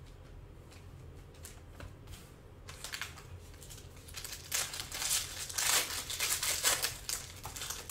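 Gold foil Panini Prizm basketball card pack being handled and torn open by hand: a few crinkles about three seconds in, then a dense run of crinkling and tearing, loudest in the last three seconds.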